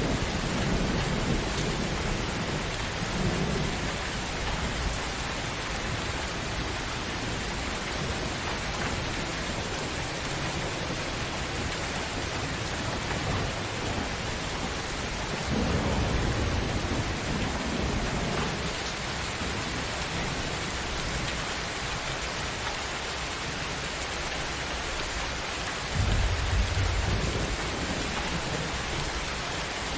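Steady heavy rain with thunder rumbling several times: low rolls early on and about halfway through, and a louder, sharper clap a few seconds before the end.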